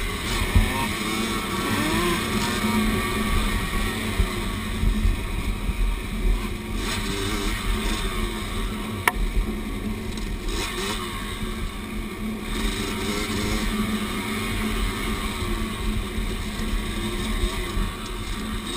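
Dirt bike engine running under way, its pitch rising and falling as the throttle is worked along a rough trail, with a single sharp click about nine seconds in.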